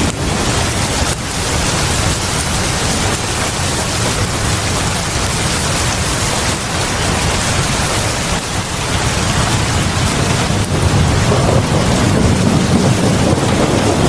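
Heavy rain pouring steadily onto a porch and the yard in front of a house. A low rumble underneath swells in the second half.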